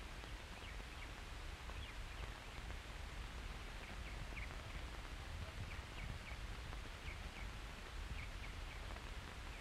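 Faint steady hiss and low hum of an old optical film soundtrack, with a few faint, brief bird chirps scattered through it.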